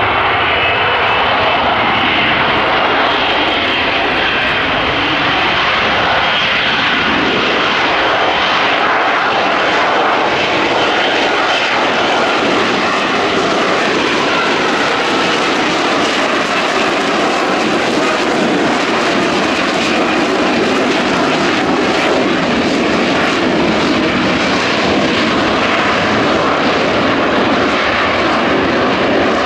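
F-35B Lightning's Pratt & Whitney F135 turbofan and shaft-driven lift fan running at hover power: loud, steady jet noise, with a faint high whine over it during the first several seconds.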